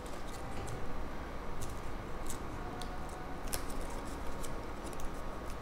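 Faint handling of paper craft pieces as they are glued and pressed together: soft, scattered small clicks and rustles over a low steady hum.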